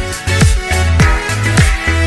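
Background music with a steady beat: deep drum hits that drop in pitch, held bass notes, and higher melodic tones above.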